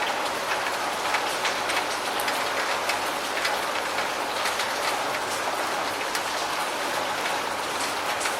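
Steady rain falling: an even hiss with many scattered sharper drop ticks.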